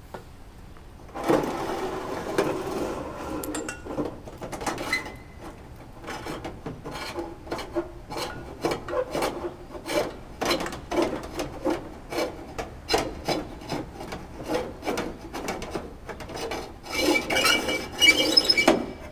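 Tubing and wires being pulled hand over hand out through the wingtip of a Cessna 172's aluminium wing, rubbing and scraping inside the wing in repeated short rasps. Longer, louder scraping comes about a second in and again near the end.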